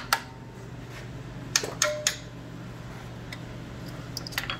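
Metal-on-metal clinks and clicks of tools and parts being handled at the connecting rods and crankshaft of a torn-down Chevrolet 305 small-block V8: a few sharp clicks, one ringing briefly, then lighter ticks near the end. A steady low hum runs underneath.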